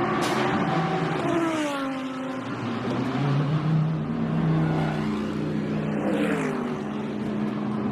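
Race car engines running, with a car passing by about a second in and another near the end, the pitch falling as each goes past.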